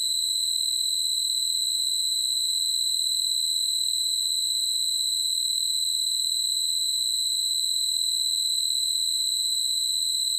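A continuous high-pitched electronic tone, one steady pitch that does not change or break.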